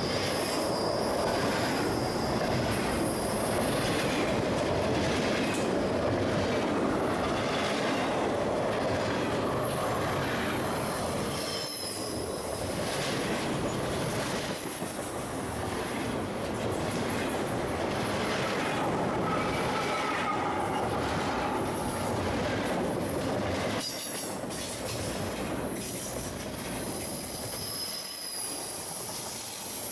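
Double-stack intermodal well cars of a CSX freight train rolling past at close range: steady wheel-on-rail rumble with clicking over the rail joints and a thin, high-pitched wheel squeal.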